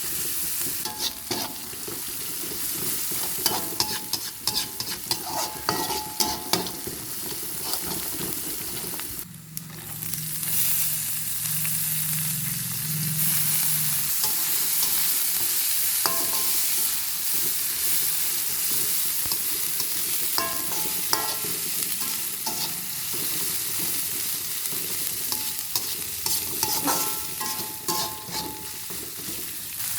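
Food sizzling in hot oil in a pan while a metal spatula stirs it, scraping and clinking against the pan with short ringing knocks. The sizzle drops briefly about nine seconds in, then carries on.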